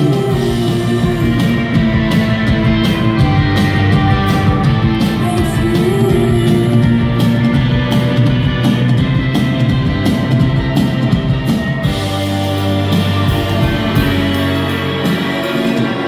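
Live indie rock band playing with electric guitars, bass and drum kit. The drums stop about twelve seconds in, leaving sustained chords ringing.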